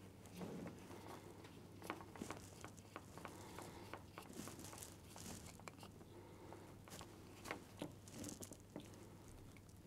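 Faint handling noise: small scattered clicks and rustles of stripped mains wires and a plastic waterproof cable connector being fitted together by hand.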